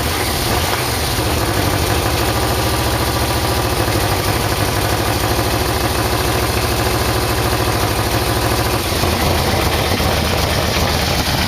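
Yamaha VMax V4 engine idling steadily while warming up, its carburetors out of sync; the engine note changes slightly about nine seconds in.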